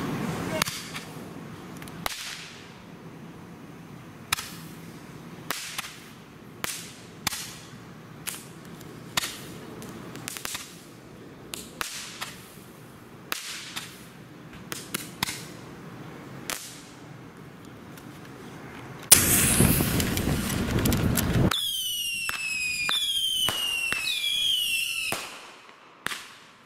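A Phantom 10-ball Roman candle with report firing: about twenty sharp pops and bangs at uneven intervals, each ball's launch followed by its report. Near the end comes a louder rushing hiss of about two seconds, then several overlapping whistles that fall in pitch.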